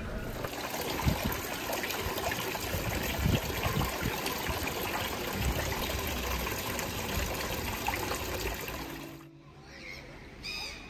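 Small tiered fountain trickling, its liquid dribbling from a spout down through stacked wooden tubs in a steady splashing stream. The sound cuts off after about nine seconds, and a short bird call follows near the end.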